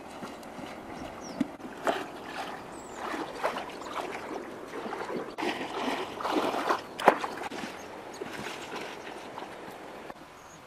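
Water splashing as a person wades through a shallow river, a run of irregular splashes over a steady rush of water, the loudest about seven seconds in, quieter toward the end.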